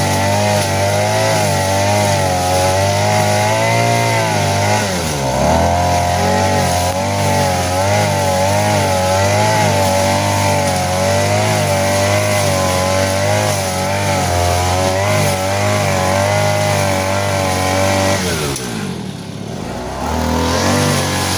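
Small petrol engine of a grass cutter running at high speed while cutting grass, its pitch wavering with the load. It dips briefly about five seconds in, and near the end it slows for about a second and a half before revving back up.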